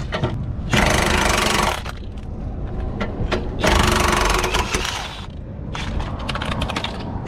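A power tool hammering rapidly in two bursts of a second or so each, lowering the car jack.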